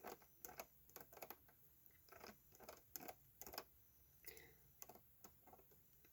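Faint computer keyboard typing: light, irregular clicks of keys, a dozen or more in a few seconds.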